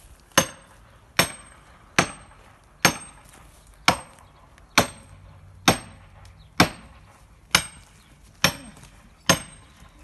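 Axe blows driving a felling wedge into the back cut of a spruce: eleven sharp strikes at a steady pace of a little under one a second, each with a brief high ring.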